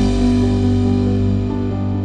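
Background music: sustained ambient chords with a low bass note, loud and steady.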